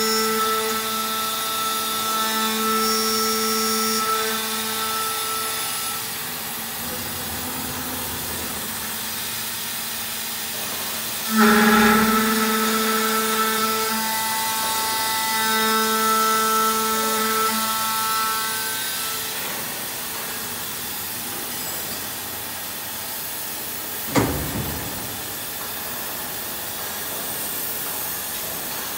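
Aluminium-profile CNC drilling-milling machine running, with a steady pitched whine. The whine sounds for the first few seconds, stops, then starts again sharply about eleven seconds in and carries on for several more seconds. Near the end there is a single knock.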